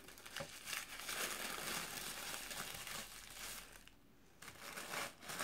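Tissue paper crinkling and rustling as a small item is unwrapped by hand, with a brief quiet lull near the end before more rustling.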